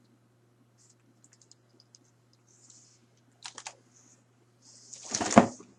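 Large plastic action figures being handled: scattered light clicks and rustles, a few sharper clicks about three and a half seconds in, then a louder knock near the end as a figure is put down or picked up.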